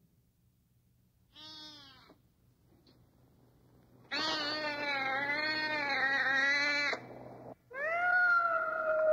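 A cat yowling in a sound-effects recording: one short, faint yowl about a second and a half in, then a long, loud, wavering yowl of about three seconds, and another long yowl starting near the end.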